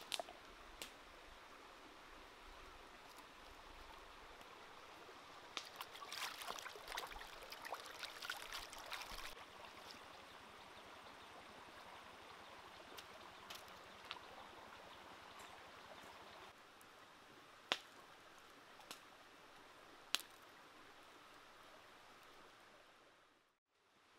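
A shallow stream trickling faintly over rocks. About six to nine seconds in there is a few seconds of close crackly handling noise, and two sharp clicks come later.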